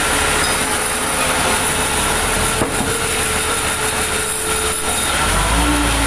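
Vertical band sawmill running steadily, its blade whining, while a large log is fed on the carriage. A deep rumble joins in about five seconds in.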